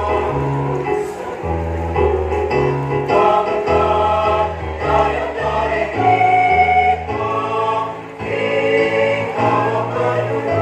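Mixed choir of women's and men's voices singing together in parts, holding chords that change every half second or so.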